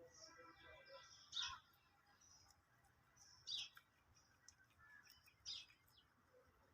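Faint bird chirps: three short, sharp calls about two seconds apart, with softer twittering between them.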